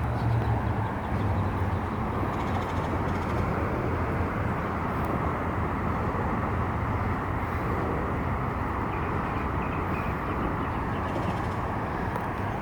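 Steady outdoor background noise, with a low hum that is strongest at the start and eases off within the first couple of seconds.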